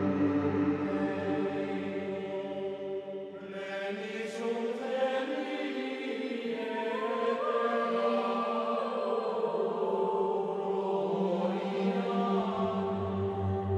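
Slow background music of sustained, chant-like choir voices over held tones; a deep bass note drops out a few seconds in and comes back near the end.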